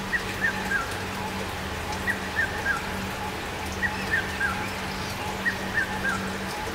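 Background music built on a looped three-note chirping figure, three short falling chirps repeating about every 1.7 seconds over a steady low hum.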